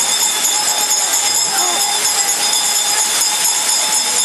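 Waterfall pouring, a loud, steady rush of falling water, with faint voices under it.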